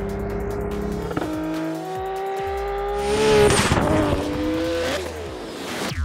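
Turbocharged VW Golf Mk2's engine held at high revs, with tyres squealing loudest about halfway through, under electronic music.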